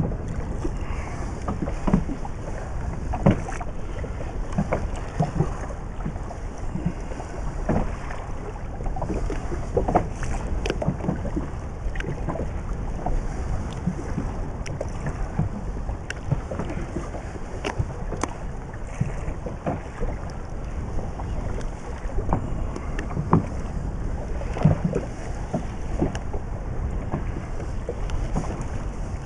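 Wind buffeting the microphone and water slapping against a small inflatable boat's hull, with irregular knocks and clicks throughout.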